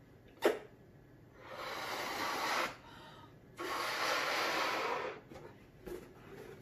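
A latex balloon being blown up by mouth: two long breaths of air rushing into it, with a pause for an in-breath between them. A brief sharp sound about half a second in.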